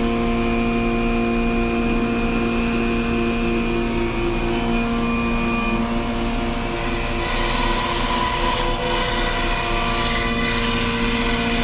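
MultiCam CNC router running, its Colombo spindle spinning at about 15,000 RPM with a steady, many-toned machine hum. About seven seconds in, the bit starts cutting melamine and a broad cutting hiss joins in.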